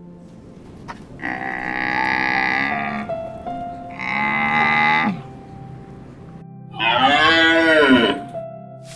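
A bovine calling: three long moos, the third rising and then falling in pitch.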